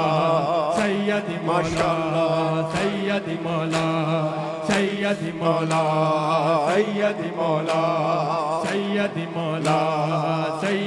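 Male voices chanting a noha, a Shia lament, in a wavering melody over a held low note, with a sharp beat struck about once a second.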